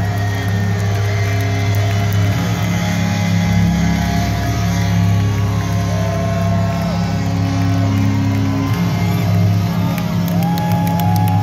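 Live rock band playing loud through a large festival PA, heard from within the crowd.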